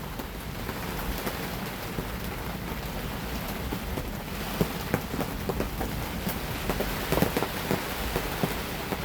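Heavy tropical rain falling on a sailboat's cockpit and bimini: a steady hiss of rain with many separate drops striking close by, the drops louder and more frequent from about halfway.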